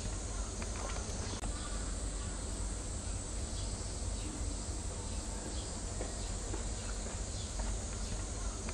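Steady background noise with a low rumble and scattered faint clicks.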